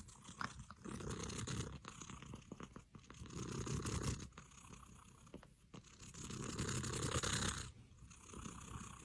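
Domestic cat purring faintly, in soft swells about a second long with pauses between, and a few small clicks in between.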